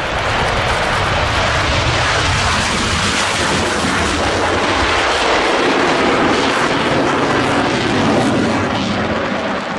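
Jet noise from a MiG-29 fighter's twin Klimov RD-33 turbofan engines as it flies a low pass and climbs away: a steady, loud roar.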